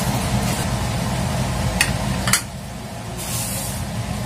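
Two sharp clinks of metal kitchenware, as chicken wings on a baking tray are handled, over a steady low hum that drops away at the second clink. A short hiss follows.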